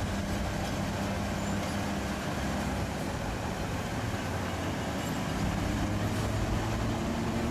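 Diesel engine of a heavy crawler bulldozer running steadily as it works, the pitch and level rising slightly near the end.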